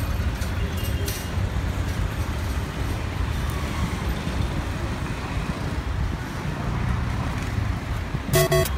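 Steady street traffic noise: a low, even rumble of cars and other road traffic passing close by. Music starts near the end.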